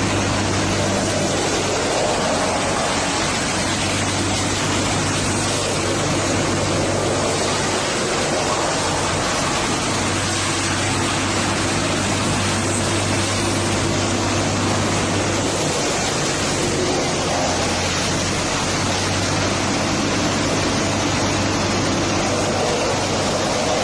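Wood crusher machine running steadily: a constant low hum under a dense, even hiss of grinding.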